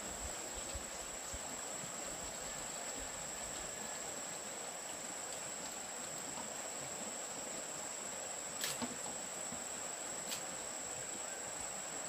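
Insects droning with one steady, high-pitched tone, with two short clicks near the end.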